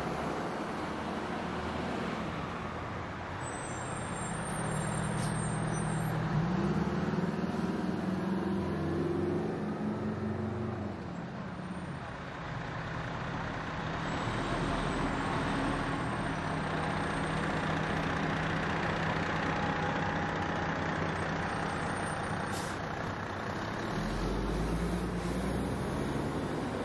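Diesel engines of a slow procession of fire trucks running as they pass one after another, with the engine pitch rising and falling as they move.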